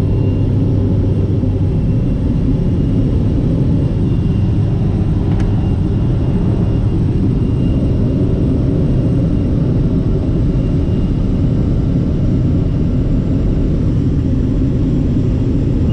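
Steady drone of a skydiving jump plane's engine and propeller heard from inside the cabin, a constant loud rumble with a thin steady whine above it. A single brief click about five seconds in.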